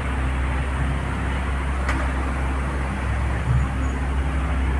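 Steady low hum of motor-vehicle noise, with a single sharp click about two seconds in.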